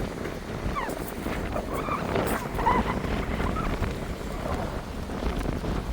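Wind buffeting the microphone, with a few short, high calls between about one and three and a half seconds in.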